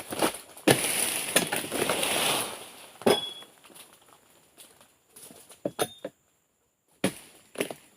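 Oil palm pruning chisel striking frond bases in sharp chops, with a rustling crash lasting about two seconds near the start.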